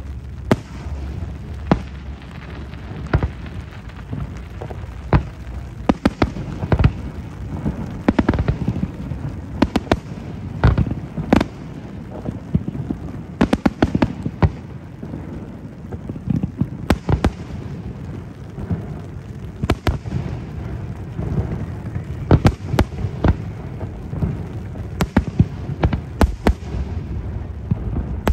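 Aerial fireworks going off in irregular succession: many sharp bangs, some in quick clusters, over a continuous low rumble.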